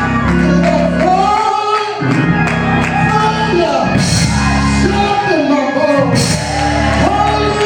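Church praise music: a voice singing and shouting in long, gliding phrases over a band holding chords, with cymbal crashes about four and six seconds in.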